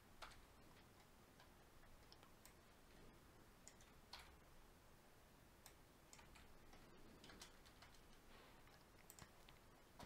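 Near silence with faint, scattered clicks of a computer keyboard being typed on, a few keystrokes at irregular intervals.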